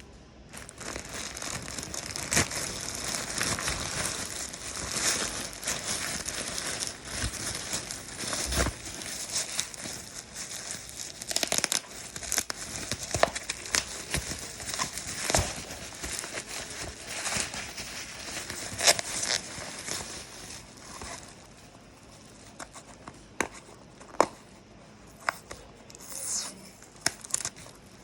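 Plastic crinkling and rustling, with many scattered sharp clicks and knocks; the handling grows sparser in the last third, leaving isolated clicks.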